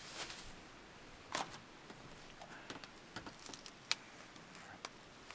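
Sparse light clicks and taps of food-prep gear being handled, about half a dozen spread across a few seconds.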